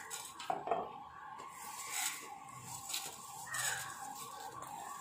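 Wooden spatula stirring and scraping coriander seeds in a dry nonstick pan, the seeds rattling quietly as they are dry-roasted on a low flame, with a few sharper scrapes.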